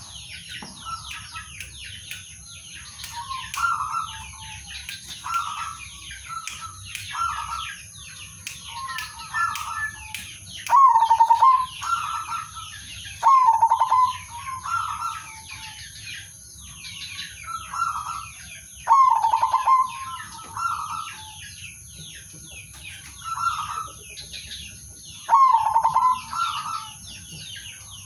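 Zebra doves cooing: short, stuttering, trilled phrases repeated every second or two, a few of them much louder than the rest. Continuous high chirping of small birds runs underneath.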